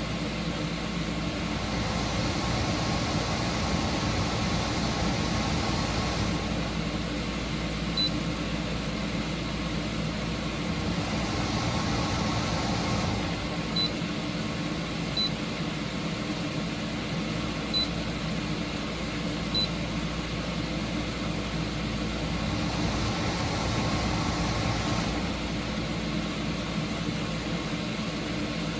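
GE portable dehumidifier running steadily, its compressor and fan giving an even hum and whoosh. Five short high beeps from its control panel come unevenly spaced through the middle stretch.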